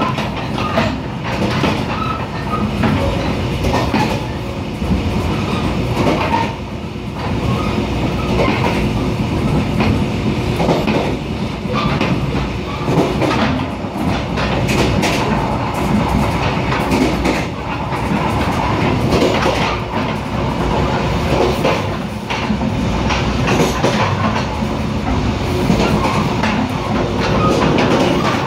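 Mugunghwa-ho passenger train running at speed, heard from inside the carriage: a steady rumble of wheels on rail with irregular clicks and clacks over the track.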